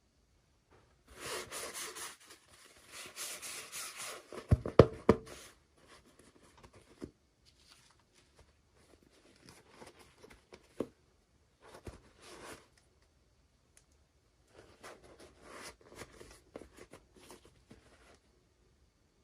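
Packaging being handled and torn open: bursts of rustling and tearing, with a few sharp clicks about five seconds in.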